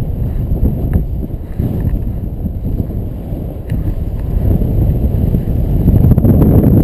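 Airflow of a paraglider in flight buffeting the camera's microphone: a loud, gusting low rumble that swells near the end.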